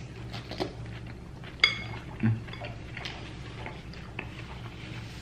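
Cutlery clinking against dishes, with scattered small clicks and one sharp ringing clink about a second and a half in.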